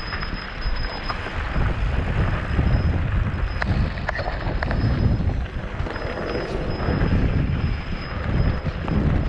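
Wind buffeting the microphone during an off-road mountain bike ride: a gusting low rumble that swells and fades under a steady hiss, with a few sharp clicks about halfway through.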